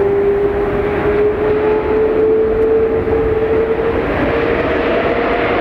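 Boeing 777-200ER's Rolls-Royce Trent 892 turbofan engines on the takeoff run: a steady jet roar with an engine tone rising slowly in pitch as thrust builds.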